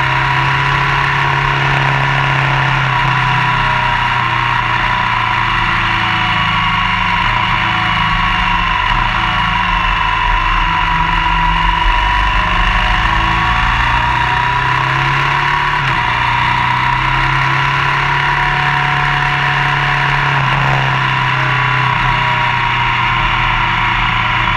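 Motorcycle riding at road speed: a steady engine note with wind and tyre noise, picked up by a camera mounted low beside the front wheel.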